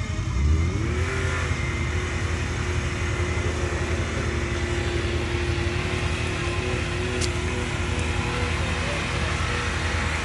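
Off-road vehicle engine revving up after a low thump about half a second in, then running steadily at high revs under load.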